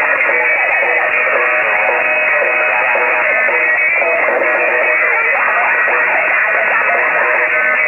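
Background song with guitar, heavily degraded so that everything above about 3 kHz is cut off, giving it a thin, radio-like sound.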